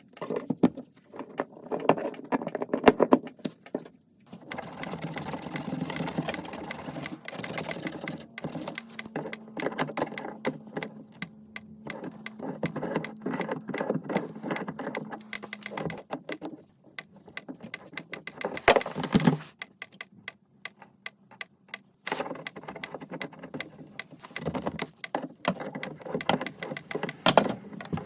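Plumbing tools and metal fittings clicking, clinking and knocking in an irregular series during water heater replacement work. A steady low hum runs from about eight seconds in to about sixteen seconds in, then cuts off.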